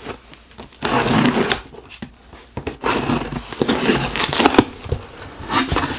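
Cardboard box and packaging being handled and opened, rustling and scraping in two stretches: briefly about a second in, then longer from about three seconds in until nearly the end.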